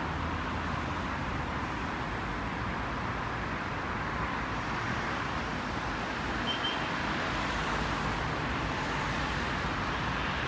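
Steady city road traffic noise, an even wash of vehicles with no single one standing out.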